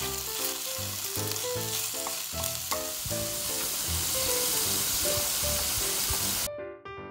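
Fatty sliced beef sizzling as it fries in a frying pan, turned with chopsticks. The sizzle cuts off abruptly near the end.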